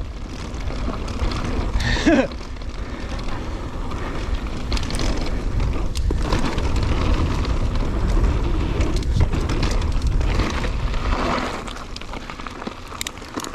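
Mountain bike riding a dirt trail at speed. Wind rumbles heavily on the microphone over the steady noise of tyres on dirt and the bike's rattle, with a short pitched sound about two seconds in.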